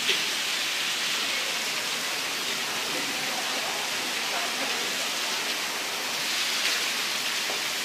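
Heavy rain pouring steadily onto wet paving, an even hiss.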